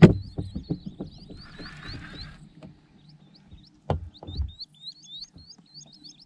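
A bird repeating a short rising chirp about three or four times a second, pausing for about a second midway. Under it are scattered knocks and clicks, with a sharp knock at the very start being the loudest.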